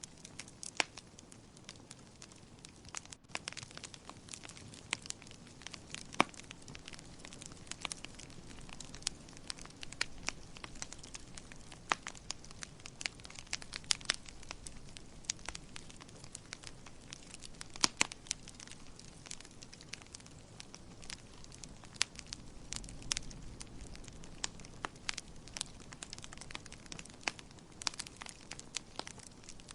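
Wood fire crackling in a fireplace: irregular sharp pops and snaps, several a second, over a soft low hiss of the burning fire. The loudest snaps come about six seconds in and again near eighteen seconds.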